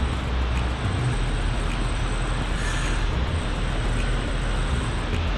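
Steady auto repair shop background noise: an even hiss over a low rumble, with no single machine standing out.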